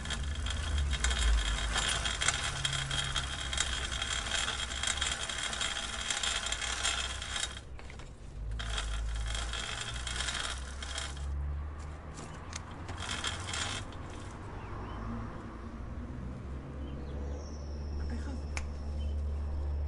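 Bicycle chain and drivetrain clicking and rattling as the bike is ridden, over a low rumble. The clicking is dense for the first seven seconds or so, breaks off briefly, then thins to scattered ticks and dies down over the second half.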